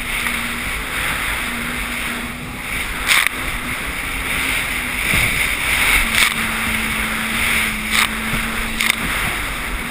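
Sea-Doo personal watercraft running at a steady speed, its engine a steady hum that shifts slightly in pitch under a wash of wind and water noise. Four or five sharp slaps break through as the craft hits the chop.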